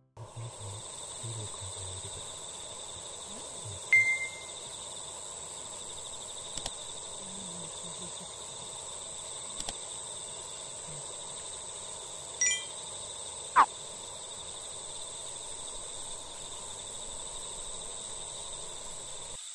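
Evening outdoor ambience of insects singing steadily, with a few short bird calls: a brief chirp about four seconds in, and near the middle a short call followed by a quick falling whistle, the loudest sound.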